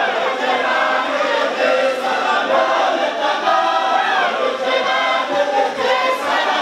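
Many men chanting together in unison, a continuous sung group chant of the kind used in a Sufi dhikr circle.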